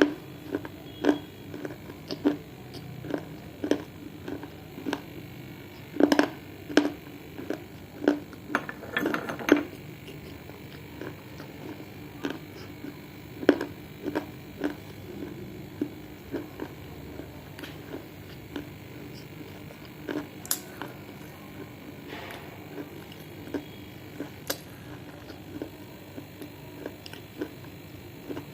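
Close-up crunching of edible clay being bitten and chewed: a run of short, sharp crunches about one to two a second, coming thickest around a third of the way in and thinning out after.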